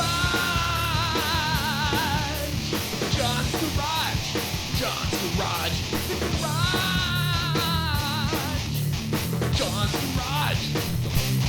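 Rock music with a driving beat. A wavering lead melody is held near the start and again about two-thirds of the way through.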